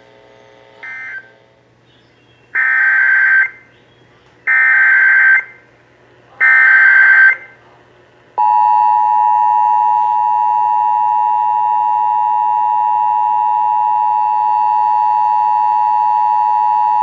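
Emergency Alert System tones. The last of three short SAME end-of-message data bursts comes about a second in, then three longer SAME header data bursts about two seconds apart. From about eight seconds in comes the EAS two-tone attention signal (853 and 960 Hz), a steady, loud dual tone that cuts off suddenly near the end, marking the start of a new alert.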